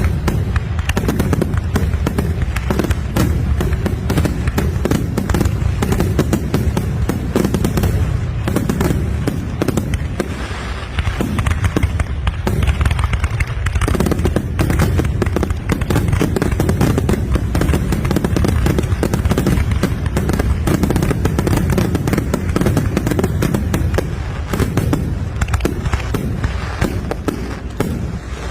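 Fireworks display: a dense, continuous barrage of bangs and crackles with no real pauses.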